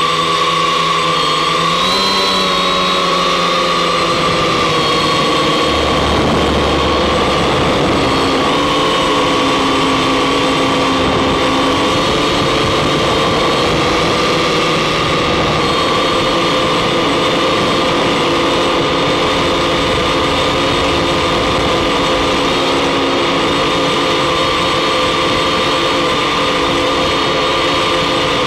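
Octocopter's electric motors and propellers running in flight, a loud steady whirring whine. Its pitch shifts in the first few seconds, then holds even.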